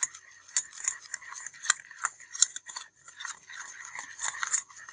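Thick gram-flour batter being mixed by hand in a stainless steel bowl: irregular wet clicks, several a second, as the fingers work through it.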